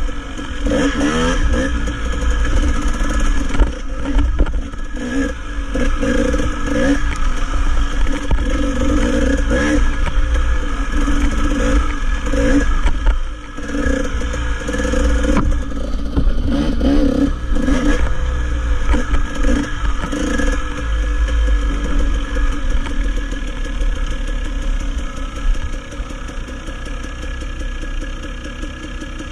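Dirt bike engine revving up and easing off again and again while riding a rough trail. It settles to a steadier, quieter run over the last several seconds.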